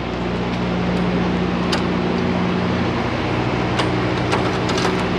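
A few sharp metal clicks from a semi-trailer's rear door latch and lock hardware being handled, the loudest near the end, over a steady low machine hum.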